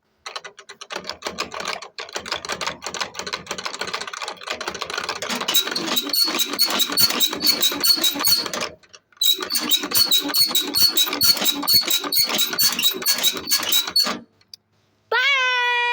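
Fast, dense mechanical clicking, like a rattling motor, that stops and restarts a few times, with a high steady whine joining it partway through. Just before the end a different pitched tone sets in, dropping in pitch and then holding.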